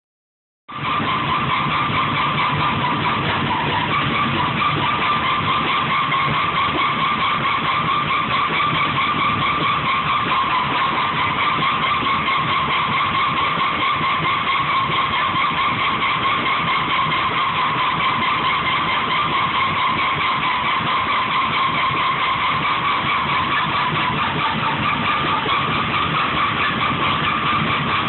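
Top-loading washing machine running with a loud, steady high-pitched squeal that wavers slightly, over a low hum. It starts within the first second.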